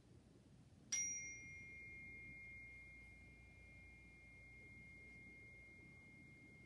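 A meditation chime struck once about a second in, its bright attack fading fast into a long, steady ringing tone. It signals the end of shavasana, inviting rest to give way to movement.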